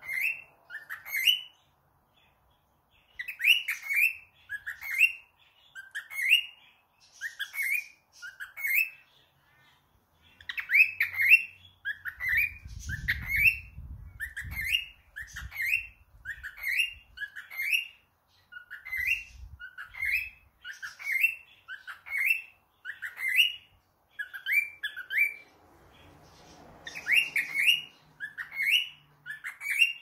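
Cockatiel chirping over and over: short rising notes, about one or two a second, broken by brief pauses.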